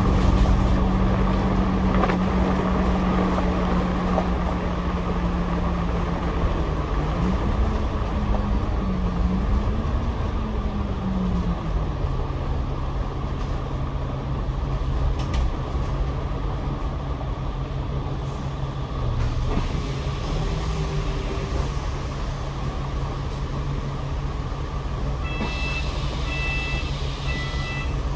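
Double-decker bus heard from inside the cabin while driving: a steady engine and drivetrain drone whose low hum rises and falls in pitch for a few seconds, then settles lower. Near the end, a high electronic beeping repeats in short pulses.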